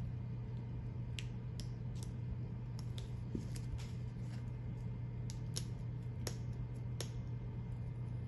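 Adhesive transfer paper being slowly peeled back off a vinyl stencil stuck to a leather sneaker: about ten irregular small crackles and ticks as it lifts, over a steady low hum.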